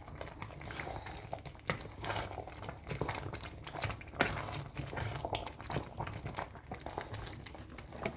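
Wooden spatula stirring thick ogbono soup in a metal pot, making soft, irregular scrapes and knocks.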